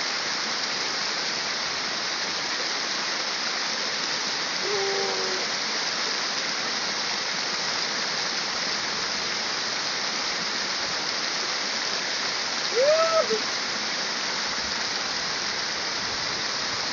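Steady rush of a small mountain waterfall. Two brief pitched sounds rise above it: a faint one about five seconds in and a louder one near thirteen seconds.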